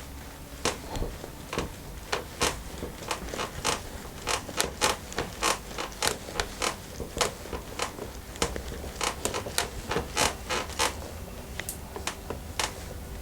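A string of short, sharp creaks or squeaks, about two to three a second and irregular in spacing and loudness, made as hands work through a massage.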